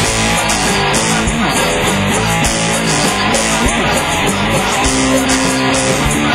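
Rock band playing live: electric guitar over a drum kit with crashing cymbals, loud and dense, in an instrumental passage without singing.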